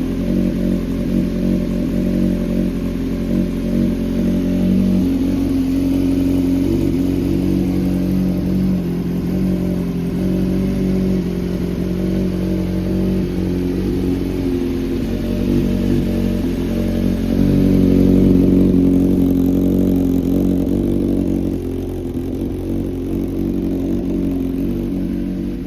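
Honda CBX400F's air-cooled inline-four engine running steadily, a little louder for a moment about eighteen seconds in. The engine is freshly overhauled and, by the seller's account, runs well with no abnormal noise.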